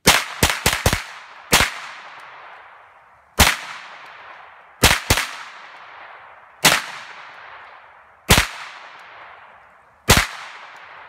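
Rifle fired eleven times: a fast string of four shots in the first second, then single shots and one quick pair spaced a second and a half to two seconds apart. Each shot rings off in a long echo through the woods.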